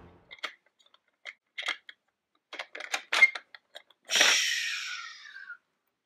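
Toy dump truck handled and pushed across a plastic playset: scattered small plastic clicks and taps, then about four seconds in a louder scraping rasp that fades away over a second and a half.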